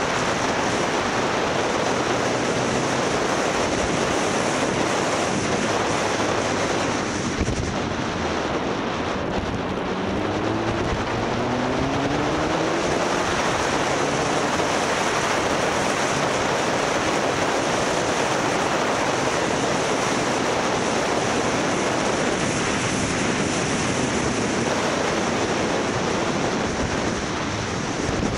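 Wind rushing over the microphone of a moving motorcycle, with the engine note underneath; about a third of the way in the engine rises in pitch twice as the bike accelerates.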